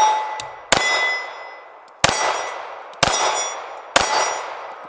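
Four shots from a Remington RM380 .380 ACP pocket pistol, about a second apart, each followed by the ringing clang of a steel target plate being hit, fading over about a second.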